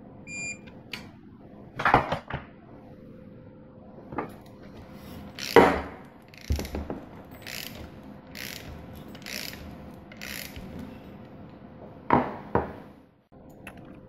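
Ratchet wrench and socket tightening the bolt on the centrifugal ignition advance unit at the camshaft end of a Honda C90 engine. There are a few sharp clicks and clanks of the tool on metal, and in the middle a run of ratchet strokes about once a second.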